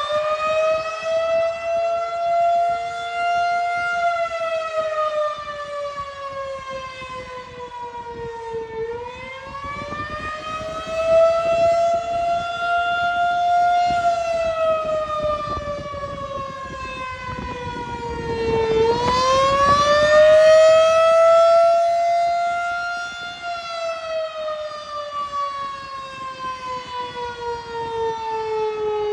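Outdoor tornado warning siren wailing: its pitch rises, levels off, then slowly falls, repeating about every ten seconds, while its loudness swells and fades.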